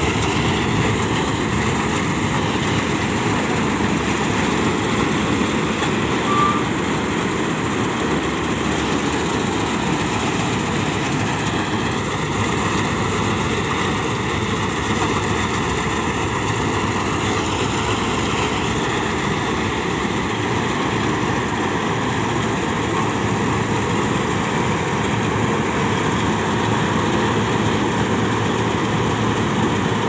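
Malkit 997 combine harvester running steadily under load as it cuts and threshes wheat.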